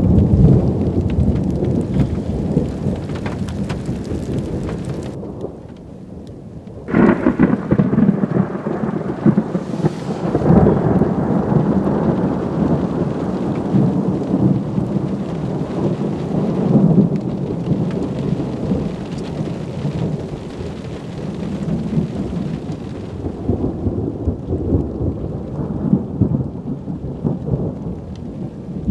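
Thunder rumbling with rain. The rumble eases off around five seconds in, then a loud peal breaks in suddenly about seven seconds in and rolls on for ten seconds or so before settling into a lower, ongoing rumble.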